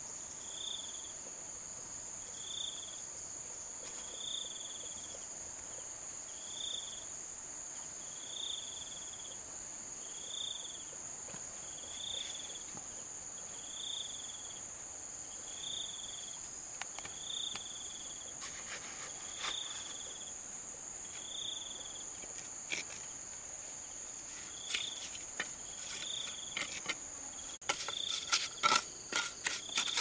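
Steady high-pitched insect drone with a short chirp repeating about every two seconds. Near the end come sharp knocks and scrapes of mortar being worked into the joints of concrete blocks.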